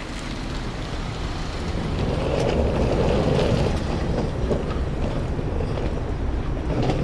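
Rumbling vehicle noise that swells about two seconds in and then eases slightly.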